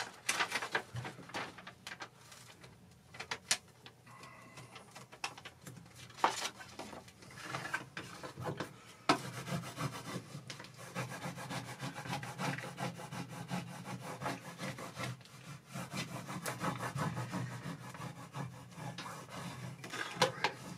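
Plastic film crackling and clicking as an adhesive transfer sheet is handled and peeled. From about nine seconds in, fast continuous rubbing and scraping follows as the film is pressed down onto the printed sheet to bond the adhesive.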